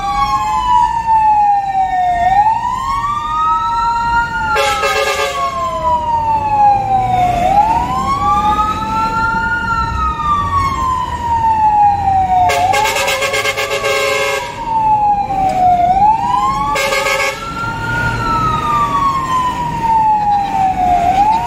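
Fire engine's siren wailing from inside the cab, two overlapping tones each rising quickly and falling slowly about every five seconds, under a steady truck engine and road noise. A horn blasts three times: short, then long for about two seconds, then short again.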